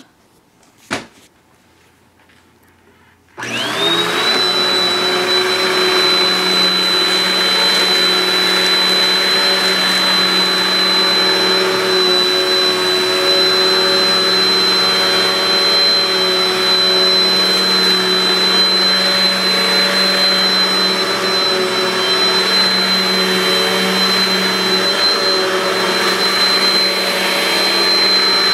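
Hoover Nano Lite cyclonic upright vacuum cleaner switched on a few seconds in, its motor spinning up and settling into a steady high whine while vacuuming. A single sharp click comes about a second in, before the motor starts.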